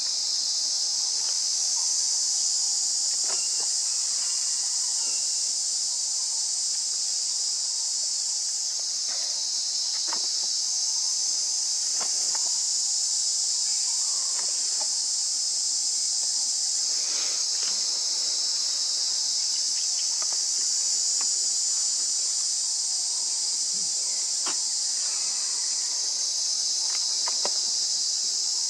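Steady high-pitched insect chorus from the surrounding forest, with scattered faint clicks and snaps of small movements on the ground.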